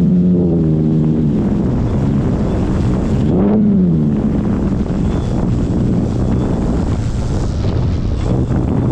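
Strong wind buffeting the microphone, with the propeller buzz of an E-flite Extra 300 RC plane's electric motor. The buzz holds steady for about the first second, swells up and back down in pitch briefly about three and a half seconds in, and is fainter and lower after that.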